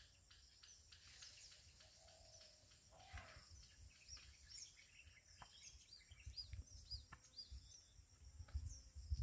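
Faint outdoor ambience: small birds chirping, with a run of short rising-and-falling chirps in the middle, over a steady high hiss. Soft low thuds come in toward the end.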